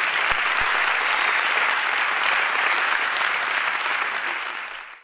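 Audience applauding steadily, with two low thumps about half a second in; the applause fades away in the last second and cuts off.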